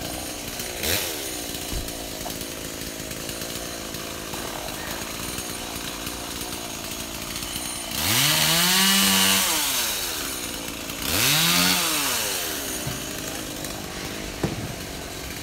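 Chainsaw running steadily, then revved hard twice, about eight and eleven seconds in, its pitch rising, holding and dropping back each time as it cuts through overhanging tree limbs.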